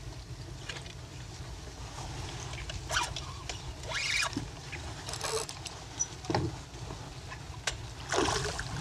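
Steady low wind rumble on the microphone, broken by several short noisy bursts. The last of them comes near the end, as a hooked sheepshead splashes at the surface beside a kayak.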